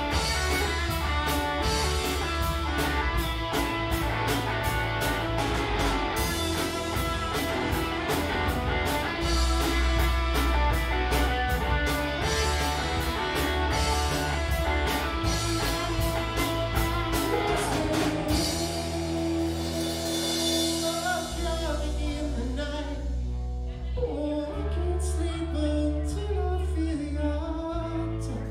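A live rock band playing with a singer: electric guitar, bass and drum kit. About eighteen seconds in, the drums drop back and a quieter passage of bass, guitar and voice follows.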